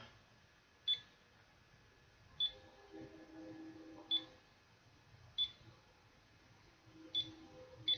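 Digital alarm clock beeping as its setting buttons are pressed: six short high beeps, each with a faint click, spaced irregularly a second or more apart.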